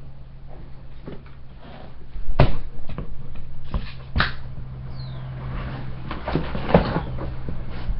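Camera tripod being handled and adjusted: a few sharp knocks and clicks with bumping rumble, over a steady low hum.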